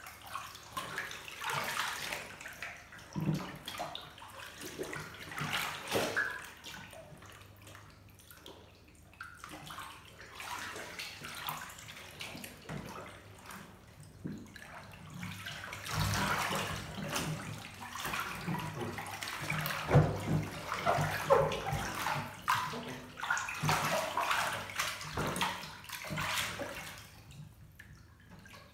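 Bathwater sloshing and splashing in a filled bathtub as a person shifts and rolls over in it, in irregular splashes that grow busier and louder in the second half.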